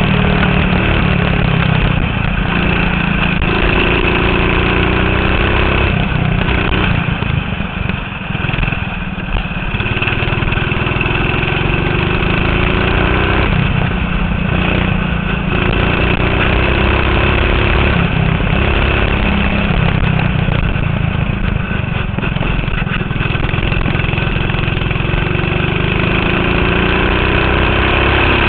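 Go-kart engine heard from on board, running hard with its pitch rising again and again as it accelerates. It drops back and quietens briefly about eight seconds in, as the kart slows for a corner.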